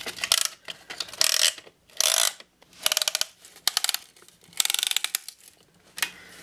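Piston ring compressor's ratchet clicking as its key is turned to tighten the band around the piston rings, in a series of short bursts of rapid clicks with brief pauses between strokes.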